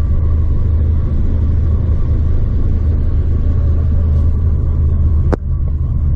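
Steady low rumble of a Honda Civic Type R's turbocharged 2.0-litre four-cylinder idling, heard from inside the cabin. A single sharp click about five seconds in.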